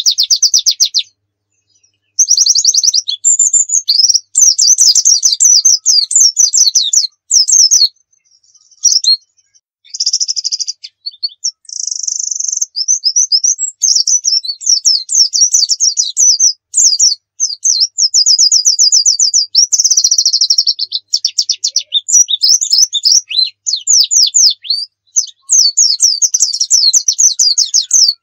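A pleci (white-eye) singing hard: long runs of rapid, high-pitched trilled and chattering notes, one burst after another with only brief pauses between them.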